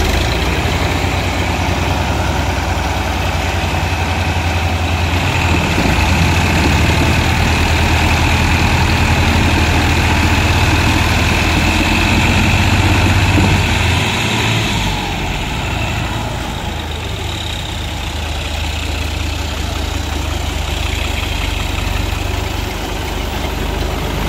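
Two diesel tractor engines, a Fiat (New Holland) 480 and a Ghazi 65, running hard under load while chained back to back in a tug-of-war pull. The engine sound grows heavier about six seconds in and eases off about fifteen seconds in.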